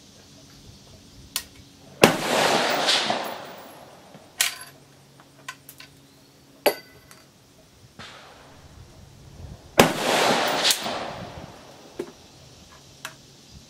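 Two shots from a .38-55 Lyman Ideal Sharps single-shot rifle, about eight seconds apart, each ringing on under the range roof for a second or two. Between them, sharp metallic clicks from the falling-block action being opened, reloaded and cocked.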